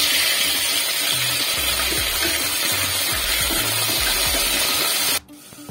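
Raw chicken pieces sizzling in hot oil in a steel pressure cooker as they are stirred with a spatula, a loud steady hiss that cuts off suddenly near the end. Background music with a low beat plays underneath.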